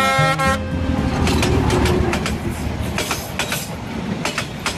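Train running on the rails, its wheels clicking over rail joints in irregular pairs over a steady rumble. A horn tone cuts off about half a second in.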